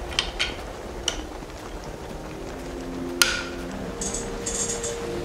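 Hard 3D-printed plastic vise parts clicking and knocking as they are handled and fitted together, in a few light taps early and one sharp click about three seconds in.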